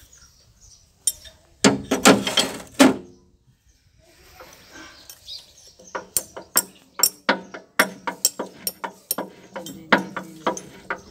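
Metal clinks from the pinion shaft and gear of a tractor's crown wheel and pinion as they are worked by hand, sharp separate clicks coming several a second through the second half. A louder burst about two seconds in.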